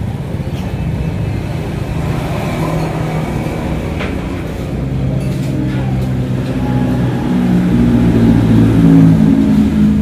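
A motor vehicle engine running and revving, getting louder in the last few seconds.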